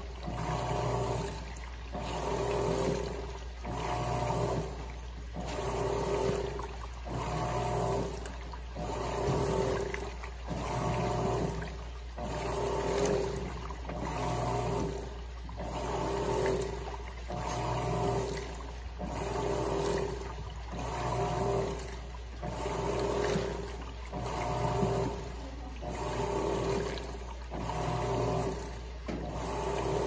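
Electrolux Turbo LTC15 top-load washing machine agitating: the motor hums in even strokes, about one a second, as the agitator swings back and forth, with water churning in the tub.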